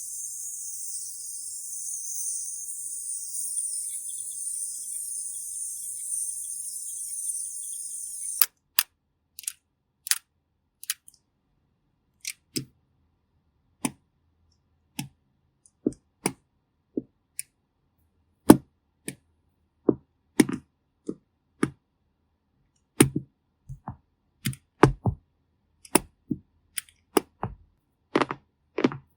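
A high steady hiss that stops suddenly about eight seconds in, followed by a string of sharp, separate clicks and cracks at irregular intervals, coming faster towards the end.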